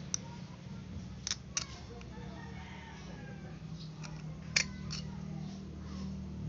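Light metallic clicks and taps from a bolt and rocker-arm pin being worked out of a motorcycle cylinder head. There are about six sharp clicks, the loudest a little past the middle.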